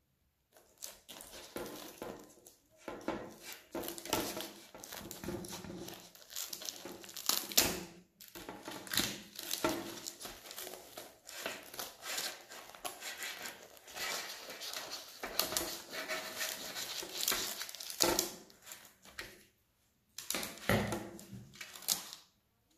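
A knife cutting through the crisp crust of a freshly baked focaccia in its baking tray: irregular crunching strokes, with short pauses about eight seconds in and near the end.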